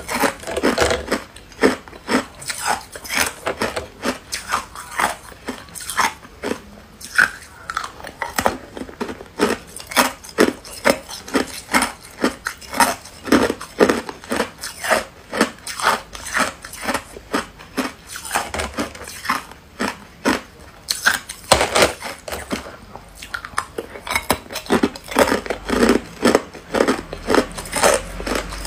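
Clear, hard ice cubes crunched and chewed between the teeth, close to a clip-on lapel microphone: a steady run of sharp crunches, a few a second.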